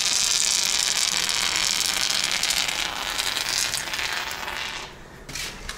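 Polyurethane mounting foam hissing steadily out of a foam gun's nozzle as a bead is laid along a milled drywall groove, cutting off about five seconds in.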